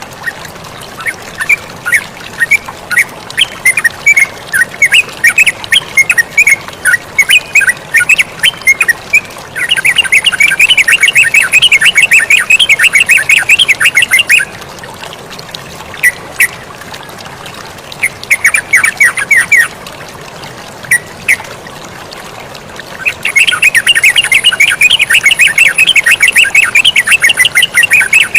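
Yellow-vented bulbuls (terucukan) calling: scattered chirps, then two long runs of rapid, dense chattering notes with a few short bursts between them. A steady sound of flowing water runs underneath.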